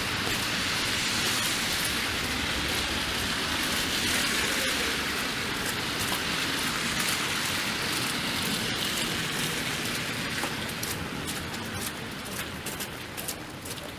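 Steady hiss of freezing rain and sleet coming down on a slushy city street. After about ten seconds it eases, and many sharp ticks break through.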